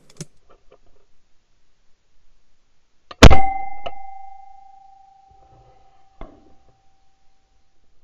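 A single shotgun shot about three seconds in, very loud and sharp, picked up by a gun-mounted camera, followed by a clear ringing tone that fades away over the next four seconds. A couple of lighter clicks come after it.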